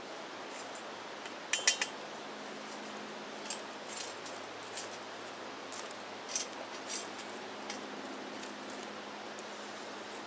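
A quick run of sharp metallic clinks about a second and a half in, then scattered lighter taps and clicks, as burning twigs are poked into a small stainless steel wood-gas (gasifier) stove.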